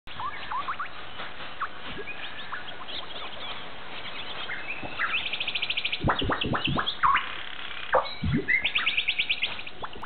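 Small birds chirping and calling, with two fast trills of rapidly repeated high notes, about five seconds in and again near the end. A quick run of sharp knocks comes around six to seven seconds in.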